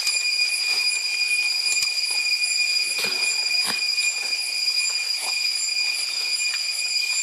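Steady, high-pitched insect drone holding one unchanging pitch, the constant buzz of forest insects.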